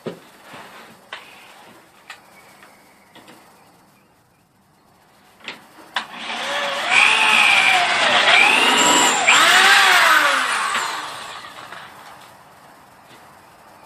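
Corded electric drill starting about six seconds in, its motor speeding up and slowing down several times for about five seconds before it winds down. A few light clicks and knocks come before it.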